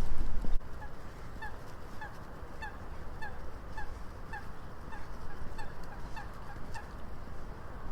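Geese honking over and over, about two calls a second, over a low steady rush of wind. Wind buffets the microphone loudly for the first half-second.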